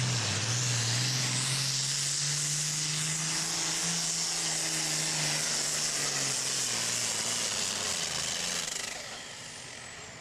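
Modified John Deere 4430 super farm pulling tractor's turbocharged diesel engine running flat out under load, pulling the sled with a strong turbo hiss. About nine seconds in the engine backs off and the turbo whistle winds down in a falling tone as the run ends.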